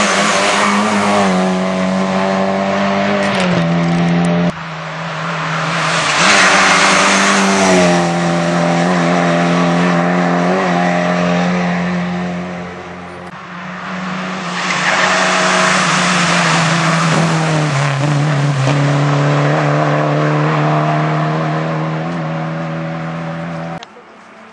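Rally car engine heard from inside the cockpit, running hard at high revs, its pitch stepping down a few times as the driver shifts or brakes. Two surges of rushing tyre and road noise come over it.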